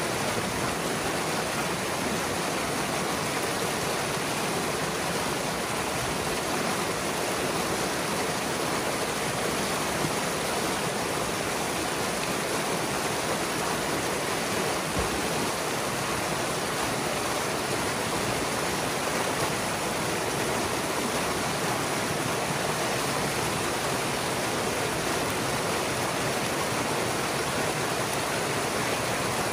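Impounded pond water rushing steadily through a narrow breach in a beaver dam, pouring and splashing down over the dam's sticks and mud.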